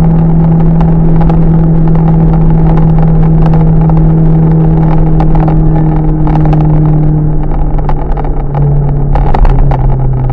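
Loud exhaust note of a car running a one-off RS-R silencer with a rear exit, droning steadily as it drives. About eight seconds in, the pitch drops a little as the engine slows.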